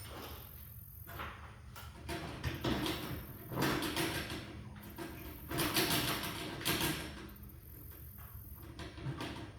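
Sectional garage door hardware rattling and scraping in several noisy swells, the sound of the door and its rollers being worked in the metal track during a roller replacement.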